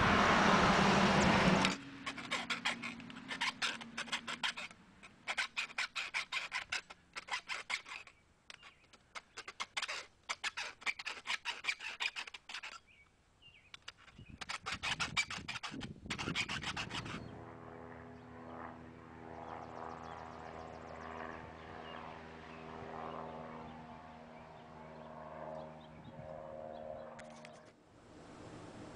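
Hand file rasping on the steel bracket of a knife-sharpener clamp, in runs of rapid strokes with short pauses. It opens with a couple of seconds of loud rushing noise, and from about halfway on a steady low hum with several tones takes over.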